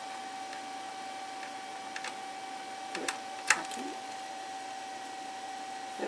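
A few light clicks and knocks from handling the satellite receiver and its plugged-in cables, the sharpest about halfway through, over a steady faint whine.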